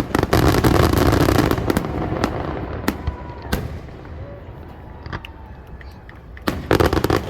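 Aerial fireworks going off: a rapid crackling barrage of bangs at the start, scattered single booms through the middle, and another loud cluster of bangs near the end.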